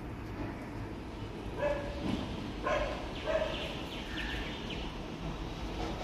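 A dog barking, four or five short barks about one and a half to four seconds in, over a steady low background rumble.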